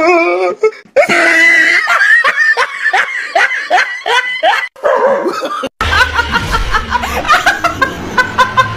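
Hard laughter in quick repeated pulses. About six seconds in it cuts to a woman laughing, with a low rumble behind her.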